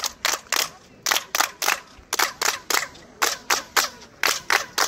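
Hand claps in groups of three, about one group a second, in front of El Castillo pyramid at Chichén Itzá. Each clap is followed by a short echo off the pyramid's stone steps, the chirped echo that people liken to a bird's call.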